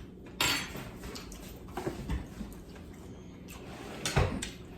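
Close-up eating sounds at the table: a few short, sharp crunches and clicks of food, plate and utensils, the loudest about half a second in and another near the end.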